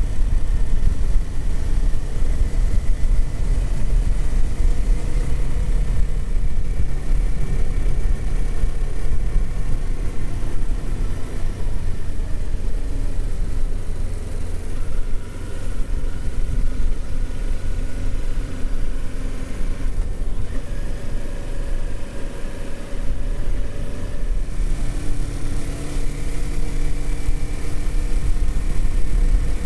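Kawasaki Z400 parallel-twin engine running while riding at road speed, with heavy wind rush on the microphone. The engine pitch changes several times as the speed varies.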